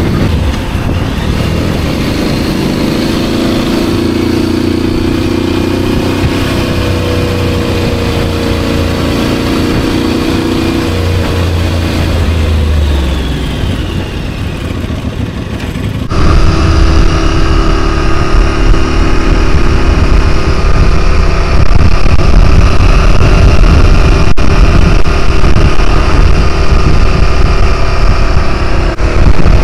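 Motorcycle engine running at road speed under heavy wind noise on the microphone. About halfway through, the engine note drops as the bike slows, then the sound cuts suddenly to a louder, steadier run with more wind.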